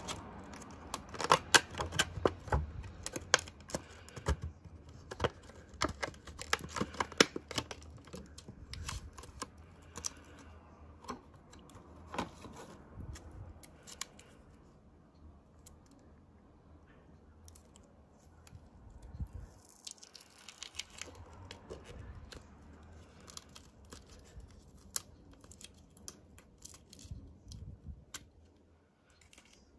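Clear plastic dessert packaging crinkling and crackling in the hands, loud and dense in the first several seconds. It then turns to softer rustling as plastic film and a paper lid are peeled off a plastic cup.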